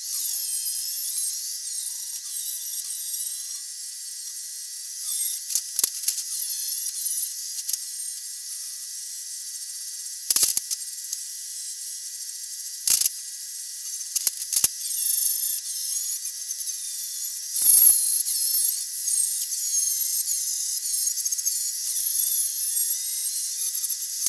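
Angle grinder grinding down raised welds on a steel angle-iron frame to get them flush: a steady high whine and grinding hiss that wavers as it bears on the metal, broken by a few sharp knocks.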